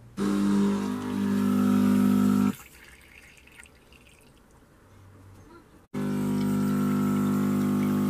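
Siemens EQ.300 automatic coffee machine's pump buzzing as it pushes water out through the outlet into a plastic jug, with water splashing. It runs for about two seconds, cuts off, then starts again about six seconds in.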